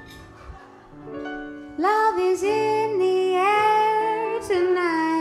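A live song opening: quiet instrumental accompaniment, then a woman's singing voice comes in about two seconds in with long, sliding, held notes over the band.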